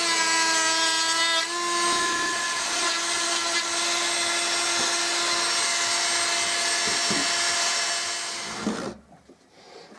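Flexible-shaft rotary tool running at high speed, its small burr grinding lines into wood: a steady high whine over a rasping grinding noise. The grinding noise grows after about a second and a half, and the tool stops about nine seconds in.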